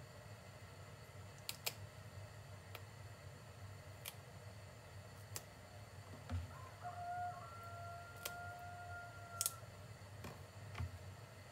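Hands picking and pulling apart a bunch of fresh dill on a plastic cutting board, with scattered faint clicks and rustles. About halfway through, a faint distant call is held on one steady pitch for about three seconds.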